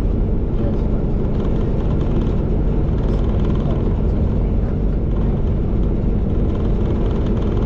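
Diesel engine of the Aso Boy! limited express, a KiHa 183 diesel railcar, running steadily as the train pulls out of the station, heard from inside the passenger car.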